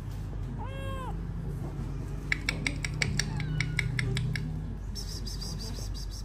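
A kitten gives one short meow about a second in, rising then falling in pitch. A rapid run of sharp clicks, about six a second, follows a second or so later over a low hum.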